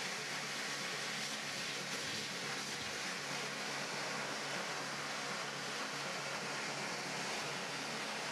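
Pet grooming dryer blowing a steady stream of air over a Samoyed's wet coat after its bath: a constant rushing hiss with a low motor hum underneath.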